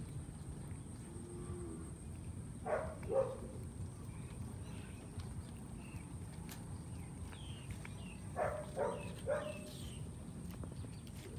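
A cat chewing raw fish: short crunching bites, two close together about three seconds in and three more between eight and nine and a half seconds in.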